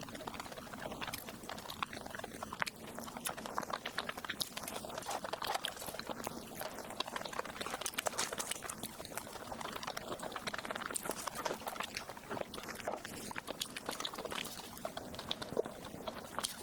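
Close-miked chewing and wet mouth sounds of someone eating soft cake: a continuous stream of small sticky clicks and smacks.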